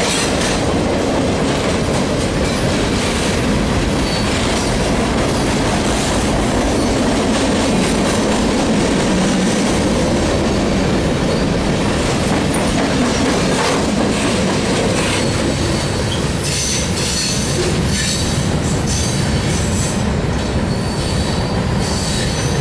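A long freight train of boxcars rolling past close by, a steady loud rumble and clatter of steel wheels on the rails. In the last several seconds, repeated high-pitched wheel screeches join in.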